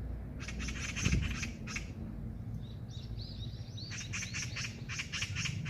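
Magpie chattering: two runs of rapid, harsh rattling calls with a short string of thin rising-and-falling notes between them, over a low background rumble. A dull thump comes about a second in.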